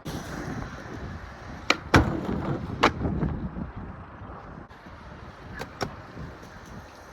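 A few sharp knocks and clacks over outdoor background noise: two close together about two seconds in, the second the loudest, another just before three seconds, and two lighter ones near six seconds.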